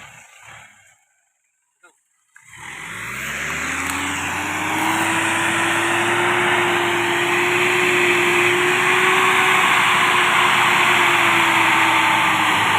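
Mitsubishi Strada Triton 4x4 pickup's engine running hard under load in mud. It starts abruptly a couple of seconds in, its pitch climbs, holds high and steady, then drops slightly near the end, over a loud hiss.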